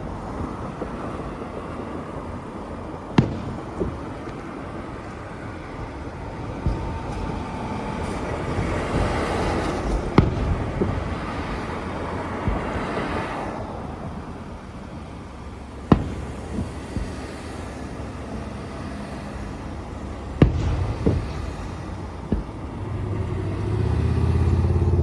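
Fireworks display: sharp single bangs of bursting shells every few seconds over a steady rumbling background, with a heavier low rumble building near the end.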